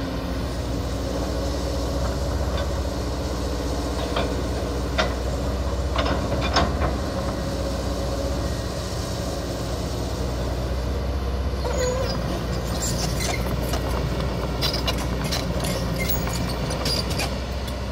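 Kobelco SK200-10 hydraulic excavator's diesel engine running steadily at moderate throttle while it digs out small eucalyptus stumps. Sharp knocks and cracks from the bucket, wood and roots come now and then, and come thick and fast in the last six seconds.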